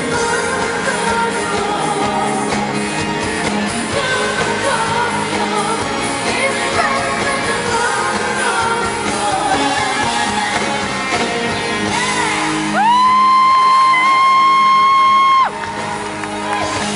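Live pop band with a female lead vocalist singing in a large hall. About thirteen seconds in she holds one long, high belted note for nearly three seconds, the loudest moment, which cuts off sharply before the band plays on.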